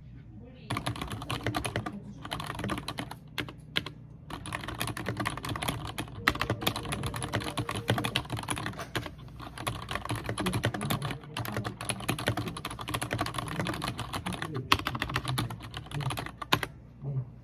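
Fast typing on a computer keyboard: a dense run of key clicks with a few short pauses. It starts just under a second in and stops near the end.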